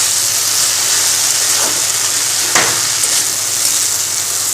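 Jute leaves and boiled potatoes sizzling steadily as they fry in a pan over a raised gas flame, being stirred, with a couple of brief sharp utensil scrapes in the middle.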